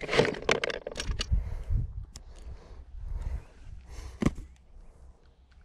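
Hard plastic tackle box being opened and rummaged: the lid and latches clicking and small tackle rattling in the trays, a quick run of clicks in the first second or so, then a few scattered clicks and one sharp knock about four seconds in. A low rumble of wind on the microphone lies underneath.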